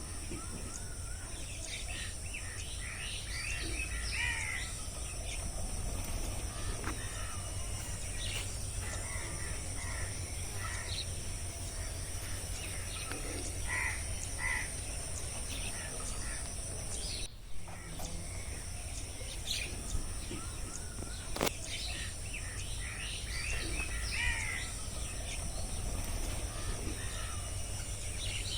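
Rainforest ambience of assorted bird calls, chirps and caws over a steady high-pitched drone and a low rumble. It drops out briefly a little past halfway.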